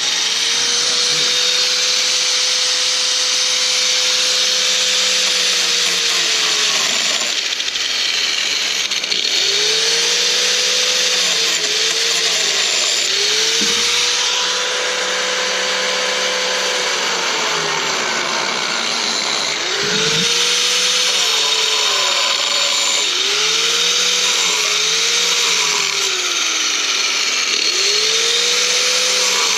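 Handheld electric power tool running steadily while cutting off metal bands, its motor pitch sagging and recovering again and again as it bites into the metal.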